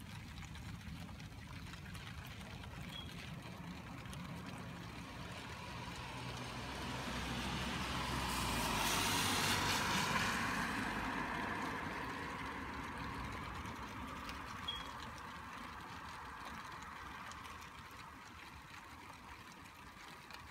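A car driving past on a rain-soaked street: tyre hiss and spray on the wet road swell to their loudest about nine seconds in, then fade away over several seconds, over steady rain.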